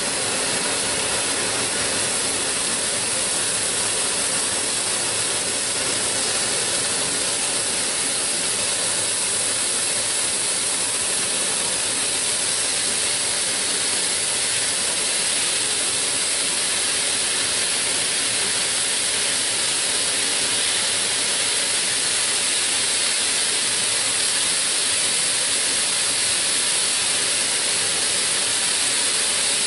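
Raw ground beef sizzling in hot oil in a skillet as handfuls are dropped in: a steady, even hiss.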